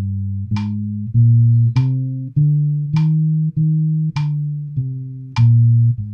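Fender Precision electric bass playing an even run of sustained notes, about one every 0.6 s, stepping up a major scale and back down. A metronome clicks about every 1.2 s, falling on every other note.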